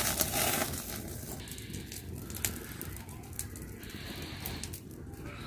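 Small havan fire of mango wood and dried cow-dung cakes burning down, with scattered small crackles and pops.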